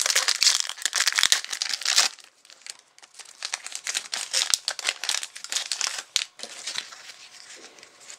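Foil trading-card pack wrapper crinkling as it is handled and opened: a dense run of crinkling for the first two seconds, then sparser crackles and ticks that thin out near the end.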